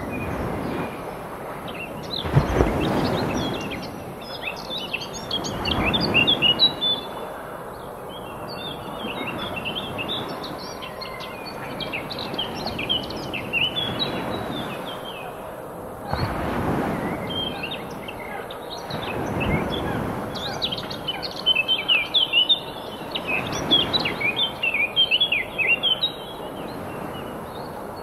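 A chorus of small birds chirping and singing over a steady wash of waves on a shore, the wash swelling every few seconds.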